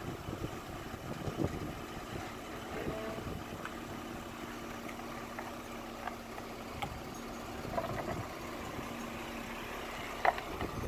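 Jeep engine idling as the vehicle creeps forward on asphalt, a steady low hum, with a few light clicks from the tyres rolling; the sharpest click comes near the end.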